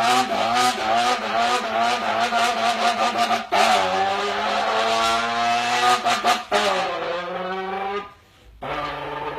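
A person imitating a sports car with their voice: a loud, wavering engine-like drone with revving and squealing tyres, briefly breaking about three and a half and six and a half seconds in. It drops out near the end for a moment, then resumes as a steadier, lower drone.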